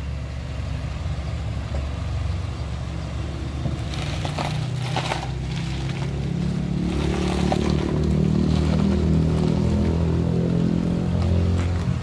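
Honda CR-V engine running, with a brief crunching on gravel about four seconds in; from about six seconds on the engine note rises and gets louder.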